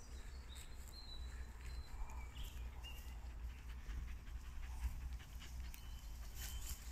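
A Kerry blue terrier panting close by, over a steady low rumble.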